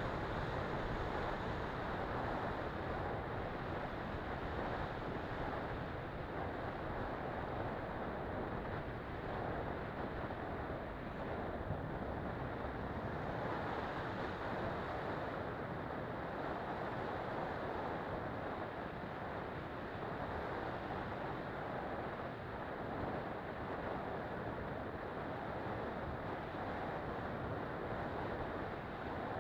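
Steady rushing wind and airflow noise on the onboard camera microphone of an FPV model plane in flight, even throughout with no distinct motor tone.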